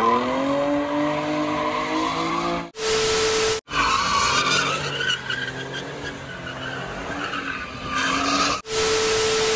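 Cars doing donuts on pavement: engines revving high, their pitch climbing in the first second, while the tyres spin and skid. The sound cuts abruptly twice between clips.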